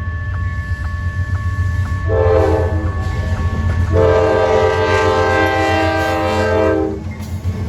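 Locomotive air horn sounding a short blast and then a long blast of about three seconds, over the low rumble of a passing train. A bell rings steadily through the first two seconds.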